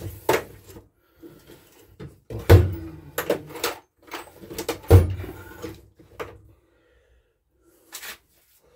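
Hard knocks and clatter of tools or parts being picked up and set down, a few separate hits with two heavier thuds about two and a half and five seconds in, then it falls quiet.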